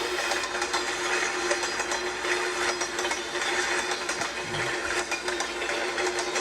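Train wheels' clickety-clack: a continuous, rapid mechanical clatter of many small clicks over a steady hum.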